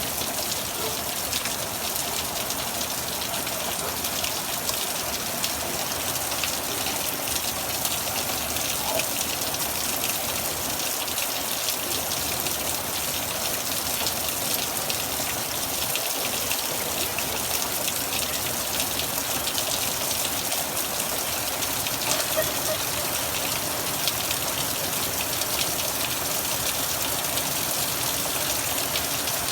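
Heavy Hurricane Harvey rain pouring steadily: a dense, even hiss of drops striking surfaces.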